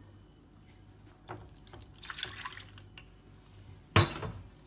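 Milk poured from a cup into a plastic bowl, a short splashing pour about two seconds in, then a sharp knock near the end.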